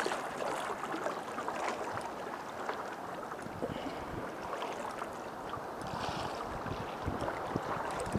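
Small waves washing and lapping against shoreline rocks: a steady wash with scattered small splashes.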